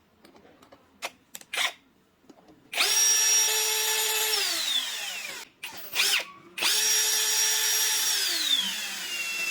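A small handheld electric power tool runs at full speed twice, each run lasting about two seconds. Each time it winds down with a falling pitch as it is released. A few light clicks come before the first run.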